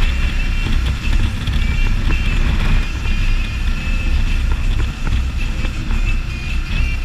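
Can-Am Spyder ST Limited three-wheeled motorcycle riding at road speed: engine running steadily under tyre and road noise, with heavy, uneven wind rumble on the microphone.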